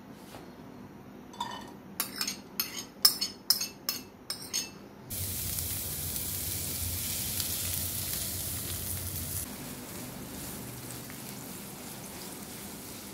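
A quick run of sharp clinks as a bowl of sliced onions is emptied into a nonstick kadai. Then, about five seconds in, a loud sizzle starts as soybean oil is poured over the onions in the hot pan. It eases after about four seconds to a steady, softer sizzle of onions frying as they are stirred.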